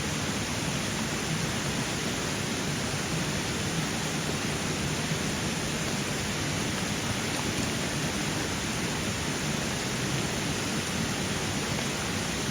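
Mountain stream flowing: a steady rush of running water.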